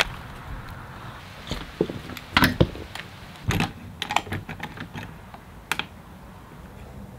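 Irregular light clicks and knocks, about ten of them, from small metal parts and tools being handled during a build, the loudest a couple of seconds in.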